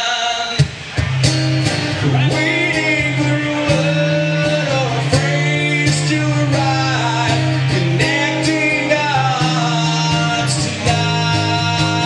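A man singing to a strummed acoustic guitar, the strumming steady, with a brief drop in the playing about a second in.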